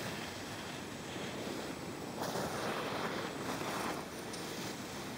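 Wind blowing on the microphone: a steady rushing noise that swells between about two and four seconds in.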